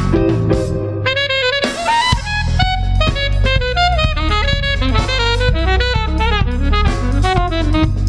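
Live jazz quartet playing: an alto saxophone runs a fast, winding melodic line over electric bass and a drum kit with cymbals.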